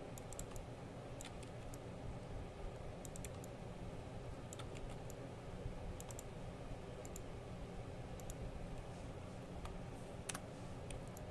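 Faint computer mouse and keyboard clicks, scattered singly and in small clusters, over a steady low hum.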